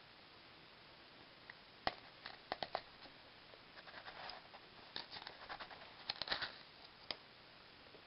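A plastic measuring scoop clicking and scraping as ground coffee is scooped from a plastic canister and tipped into a coffee maker's filter basket: scattered light clicks and scratchy rustles, the sharpest about two seconds in.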